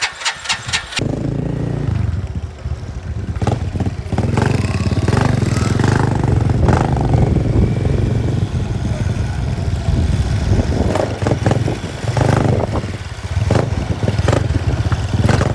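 An engine: quick regular pulses that stop about a second in, then the engine runs with a steady low hum that rises and falls in speed.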